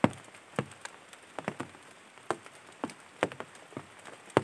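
Scattered drops landing in an irregular patter, a few sharp taps each second, with one louder tap near the end.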